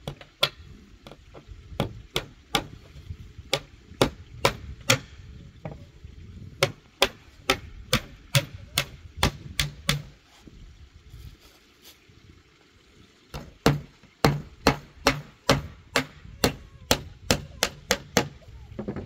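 Repeated sharp blows of a hand tool striking, likely on wood, about two a second, in three runs with short pauses between, over a low steady rumble.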